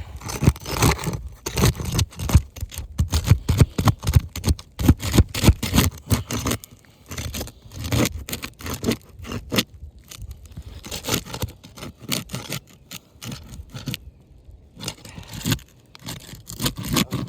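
Asphalt shingles being worked loose by hand and tool, scraping and crackling as the sealant bond is broken. The strokes come fast and dense for about the first six seconds, then more sparsely with short pauses.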